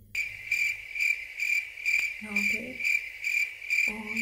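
Cricket chirping: a steady, high, shrill chirp pulsing about three times a second, which starts and cuts off abruptly.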